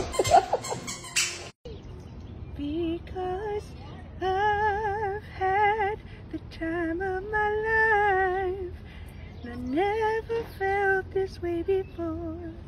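A woman's singing voice holding slow, wavering notes with a vibrato, in short phrases with brief pauses between them. It follows a second and a half of loud, noisy sound that cuts off abruptly.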